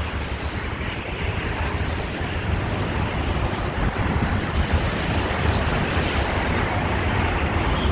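Wind blowing across the microphone: a steady rush with a gusty low rumble.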